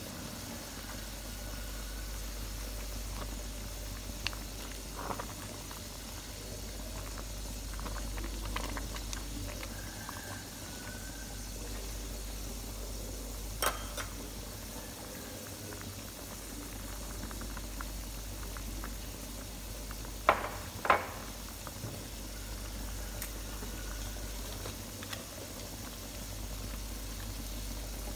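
Pot of Malabar spinach and minced pork soup boiling hard, a steady bubbling over a low hum. A few sharp clicks stand out, the loudest two close together about twenty seconds in.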